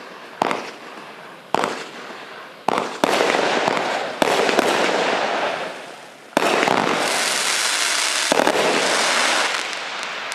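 Cube Fireworks' Thunderbolt firework firing, a run of sharp launch bangs, each followed by a long noisy tail from the bursting effects. The shots come closer together and the tails grow longer, holding for a couple of seconds each in the second half before the sound dies away near the end.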